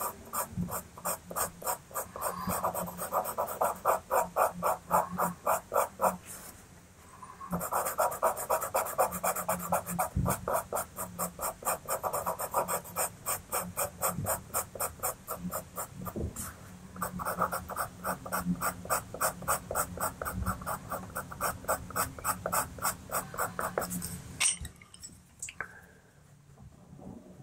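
A Pitt pastel pencil scratching quick, short hatching strokes on textured pastel paper, about five strokes a second. The strokes pause briefly twice and stop a few seconds before the end.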